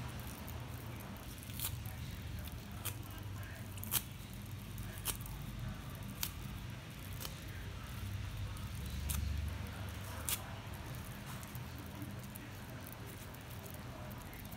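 Fingers picking open the capped cells of a papery brood comb to pull out the larvae: light crackling with sharp clicks about once a second, over a low steady hum.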